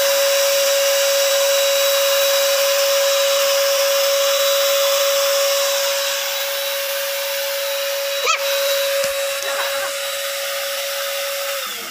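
Paint Zoom portable electric spray gun (650 W) running while spraying water: a steady motor whine over a constant rush of air and spray. A sharp click comes about eight seconds in, and the motor stops near the end.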